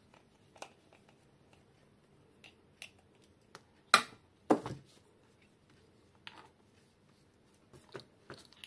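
A moulded plastic three-pin mains plug being unscrewed and opened with a screwdriver: scattered small clicks and knocks of plastic and metal, the loudest two about four seconds in.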